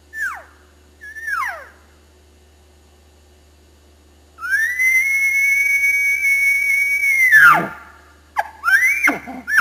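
Elk bugle: about four seconds in, a high whistling note rises and holds steady for some three seconds, then drops away into a low grunt. Two short falling squeals come in the first two seconds, and another rising call begins near the end.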